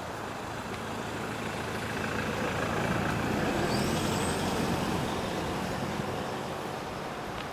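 A road vehicle passing by: a broad rushing noise that builds for about three seconds and then fades away.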